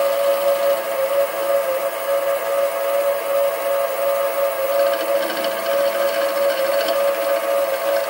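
Sieg SC3 mini-lathe running with its spindle turning a 9 mm milling cutter, giving a steady high whine.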